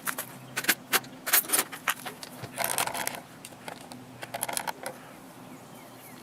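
Tools and metal engine parts clinking and clattering by hand in an engine bay while the air intake is being removed. There are several sharp knocks in the first two seconds and a short rattle about two and a half seconds in.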